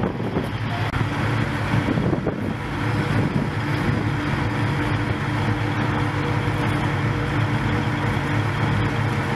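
A tracked armoured vehicle running past, then a heavy engine idling with a low hum, which settles in about two seconds in.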